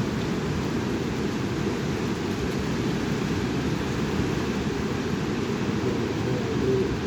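Strong wind blowing across the microphone: a steady low rumble with a fainter hiss above it.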